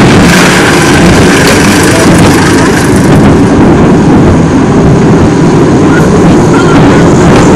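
Loud, steady rumble and rush of a funfair ride train running along its steel track, heard from a camera mounted on the moving car.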